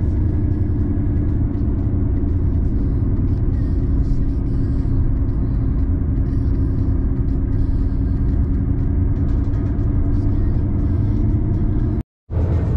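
Steady road and engine noise heard from inside a moving vehicle at highway speed: a constant low rumble with a steady drone. It cuts out completely for a split second about twelve seconds in, then carries on unchanged.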